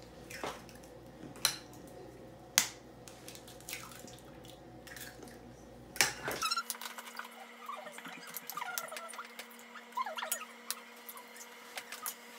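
Eggs being cracked into a stainless steel mixing bowl: a few sharp taps of shell against the metal, with small shell clicks and cracks between.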